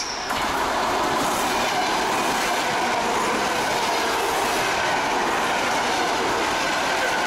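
Electric commuter train passing close by at speed: a loud, steady rush of wheels and carriages on the rails.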